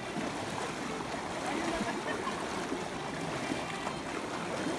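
Shallow river water rushing and splashing steadily around people wading through it.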